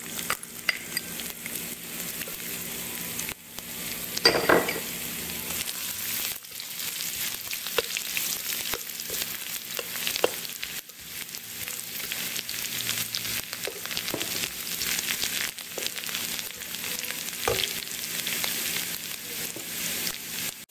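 Sliced ginger sizzling in hot oil in a pan as it is stir-fried, with scattered scrapes and knocks of the stirring utensil against the pan and a louder scrape about four seconds in.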